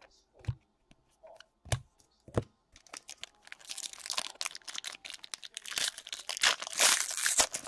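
Foil wrapper of a 2015 Bowman Draft baseball card pack being torn open and crinkled in the hands, after a few sharp taps of handling the cards. The crinkling starts about three seconds in and is loudest near the end.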